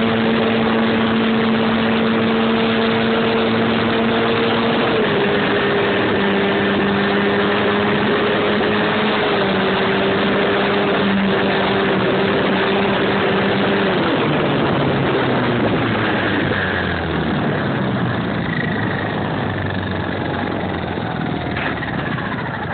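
RC airplane's motor and propeller, heard from its onboard camera, running steadily, with the pitch stepping down a little about five seconds in. Past the middle the throttle is pulled back and the pitch falls away in steps, leaving the rush of wind as the plane glides down to land.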